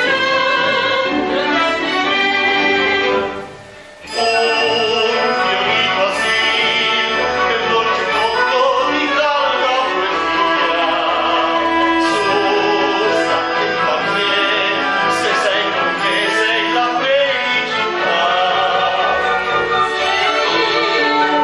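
Theatre orchestra with strings playing operetta music under sung voices. It breaks off briefly about three seconds in, then resumes.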